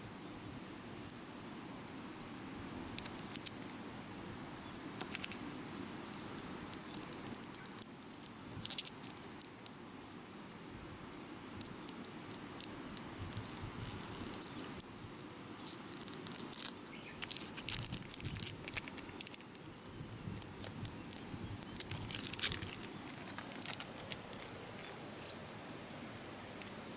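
Clear plastic transfer film being peeled off a vinyl car decal, crinkling and crackling in short irregular bursts, over a steady outdoor background noise.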